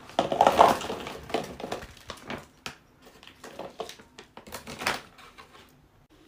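A bag crinkling as chunks of sweet potato are tipped out of it into a plastic bowl, loudest in the first second. Scattered knocks follow as the last pieces drop and settle.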